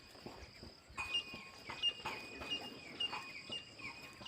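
Insects, crickets or the like, making a steady high drone, with a run of short chirps that fall at their ends and a few light knocks.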